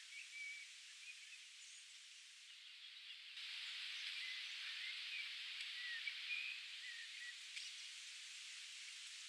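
Small birds chirping in short, scattered calls over a steady rushing hiss that turns louder about three and a half seconds in.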